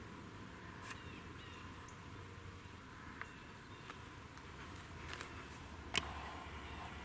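Quiet outdoor ambience with a few faint, short bird chirps and small ticks, and one sharp tap about six seconds in.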